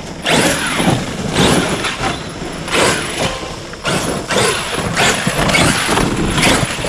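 Arrma Outcast 8S RC stunt truck's brushless electric motor whining in repeated bursts of throttle, about one a second, its pitch sweeping up and down as the truck speeds over grass and dirt.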